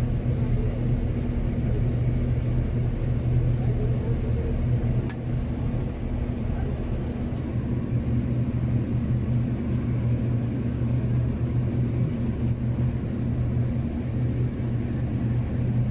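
Engine running steadily nearby, a constant low hum.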